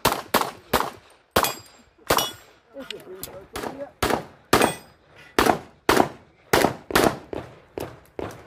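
Semi-automatic pistol shots fired rapidly, about two a second in quick strings with short breaks, some seventeen in all. A few of them are followed by a brief metallic ring from hit steel targets.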